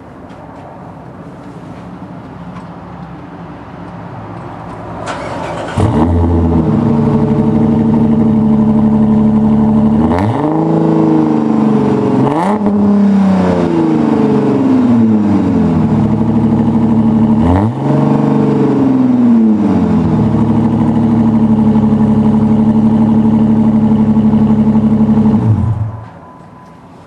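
A 2010 Dodge Challenger SE's 3.5-litre V6 through a Borla true-dual exhaust, heard at the tailpipe: it fires up about six seconds in, idles, is revved three times with the pitch climbing and falling back to idle after each, then is shut off near the end.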